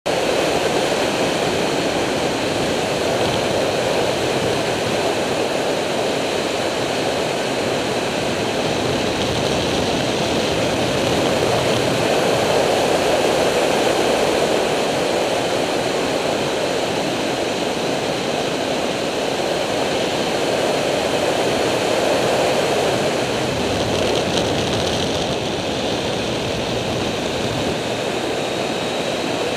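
Onboard riding noise from a Triumph Street Triple at steady road speed: a continuous rush of wind over the microphone with the motorcycle's engine running beneath it.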